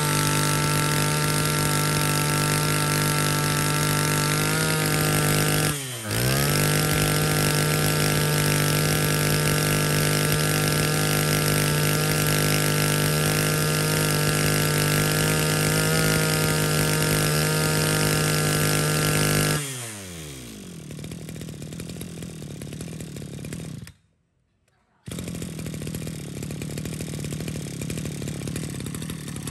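Maruyama 32cc two-stroke brush cutter engine running steadily at high revs. About six seconds in, the revs dip briefly and climb back. Near twenty seconds the revs fall away and a much quieter sound follows, with a break of about a second near the end.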